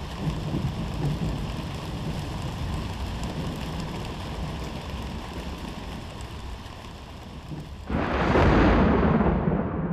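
Steady low rumbling noise, then about eight seconds in a sudden loud boom with a long rumbling tail whose hiss thins out and fades over the next two seconds.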